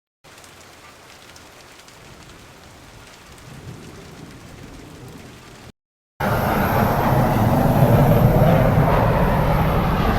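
A faint, even hiss that cuts off abruptly, then, about six seconds in, a loud, steady thunderstorm: heavy rain with a low rumble of thunder underneath.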